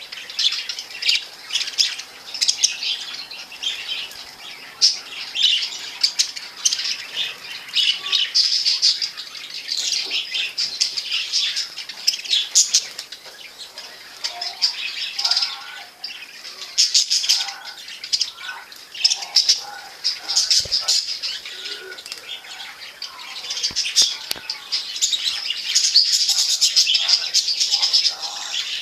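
Budgerigars chattering, a steady stream of rapid, high warbling chirps, with a few faint knocks about two-thirds of the way through.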